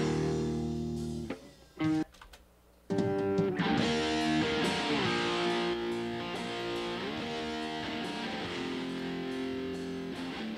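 Electric guitar track played back through a software compressor set to 5:1, sounding held chords. Playback cuts out about a second in and, after a brief blip, resumes about three seconds in with the compressor's attack now set very short.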